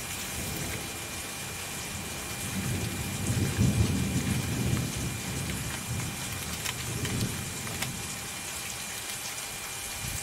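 Cardboard boxes and packaging being handled and shifted, with scattered light clicks and crinkles over a steady hiss. A low rumble swells about three seconds in, fades by five, and returns more faintly a couple of seconds later.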